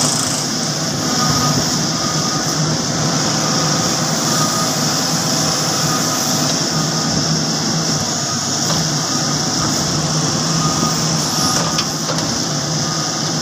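Case 770FX Plus backhoe loader's diesel engine running steadily while its backhoe arm digs and scoops soil.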